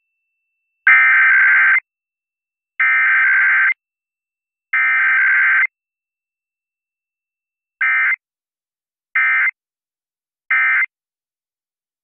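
Emergency Alert System SAME digital data bursts, a harsh electronic warble: three header bursts of about a second each, then after a pause three short end-of-message bursts.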